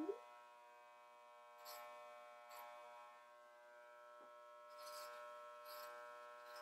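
Corded electric hair clippers running with a faint, steady buzz.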